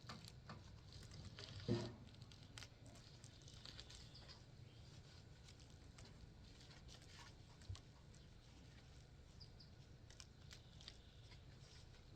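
Near silence with faint scattered ticks and rustles, and one short louder knock just under two seconds in.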